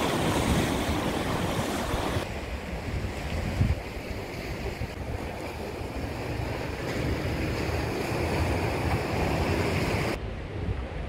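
Sea surf washing and breaking against rocks, with wind rumbling on the microphone. The sound drops a little in level about two seconds in.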